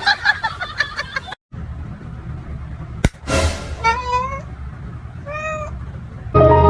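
A cat meows twice, two short calls about a second and a half apart, after a burst of clattering noise at the start.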